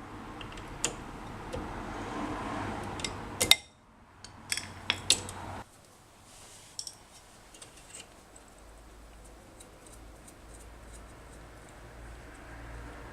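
Small metal parts and hand tools clinking and tapping while a handbrake cable clevis pin is worked out of the linkage for readjustment: scattered sharp clicks, two loud clusters a few seconds in, then fainter ticks over a low steady hum.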